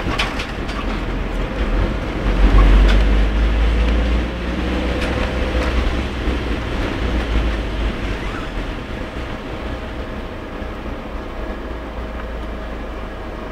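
Vehicle driving through very heavy rain: a steady low road rumble with the hiss of tyres on a wet road and rain on the vehicle, a few faint ticks among it.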